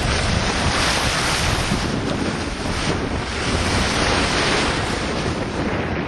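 Wind buffeting the microphone over the steady rush and splash of open sea water along a sailboat moving under way.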